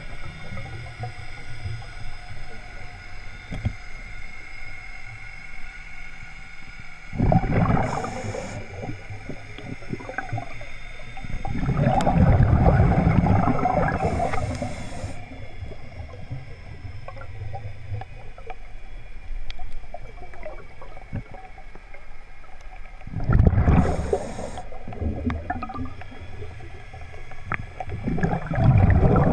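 Scuba diver breathing underwater through a regulator: four bubbling exhalations a few seconds apart, each followed by a brief high hiss of the regulator on the inhale, over a faint steady hum.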